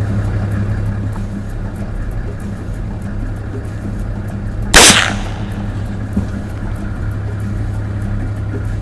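A single loud rifle shot about halfway through, sharp with a short tail, over a steady low hum.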